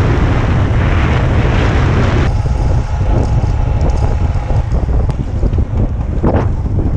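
Heavy wind buffeting on the microphone, a loud steady rumble with hiss above it that eases about two seconds in, with a vehicle's running noise underneath.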